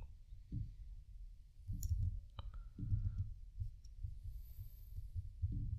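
Faint clicks of a computer keyboard and mouse: two sharp clicks about two seconds in, over soft low thumps roughly once a second.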